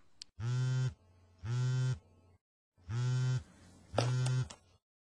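Telephone ringing tone in double rings: two short buzzy rings, a pause, then two more.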